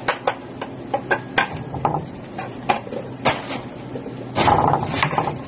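Scattered short plastic clicks and knocks from handling an electric kettle and its plug, with a louder clatter lasting about half a second around four and a half seconds in.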